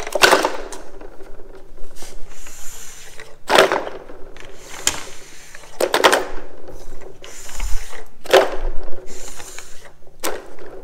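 Yellow plastic stud backers, Stud Boy Superlite Pro Series Double+, being dropped one after another into a bucket of warm soapy water to soak. There are about seven sharp plops, each with a short splash, at uneven intervals of a second or two.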